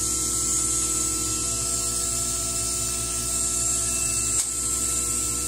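CO2 laser cutter running a cut through half-inch poplar: a steady machine hum with several constant tones and a hiss above it, from the fans and the air assist blowing at the cutting head. A single short click comes about four and a half seconds in.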